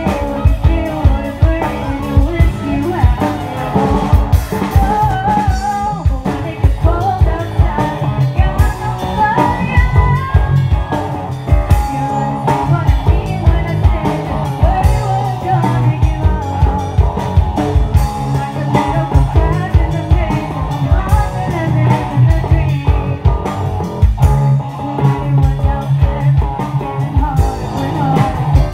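Live rock band playing: electric guitars, electric bass, keyboard and a drum kit, with a female lead singer.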